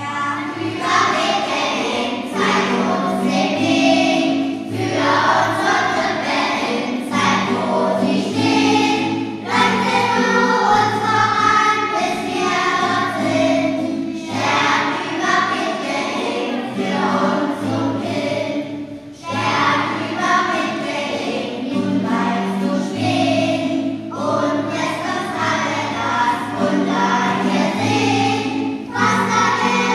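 Choir singing with instrumental accompaniment and sustained bass notes. It starts suddenly, in full, right at the beginning.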